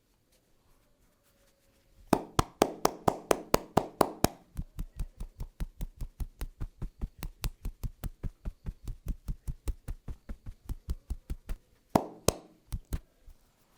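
Hands striking a person's body in quick rhythmic massage percussion, about six strikes a second. A run of loud, full slaps comes about two seconds in, lighter taps with a dull thud follow for most of the time, and a few loud slaps return near the end.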